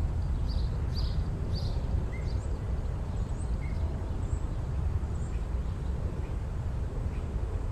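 Outdoor ambience: a steady low rumble with birds chirping, a quick run of short chirps in the first two seconds and a few scattered ones after.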